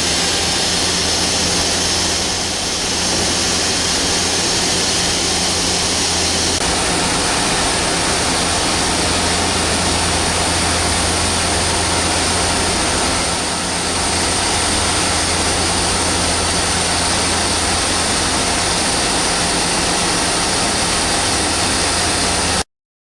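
Okuma LB3000 EXII CNC lathe running: a steady machine hum under a broad hiss that cuts off abruptly near the end.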